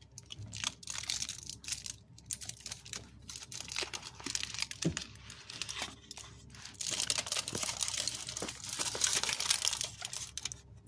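Foil wrapper of a Dairy Milk Silk Bubbly chocolate bar crinkling and crackling as it is peeled open by hand, the gold outer wrap and the inner silver foil rustling in a dense run of small crackles that is busiest in the second half.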